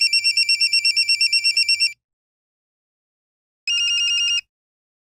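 Electronic telephone ring, a fast warbling trill lasting about two seconds, then a second, shorter ring about a second and a half later that cuts off.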